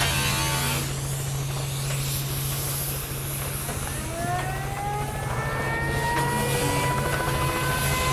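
A motor vehicle engine running with a steady low hum, with a whine that rises slowly in pitch from about four seconds in.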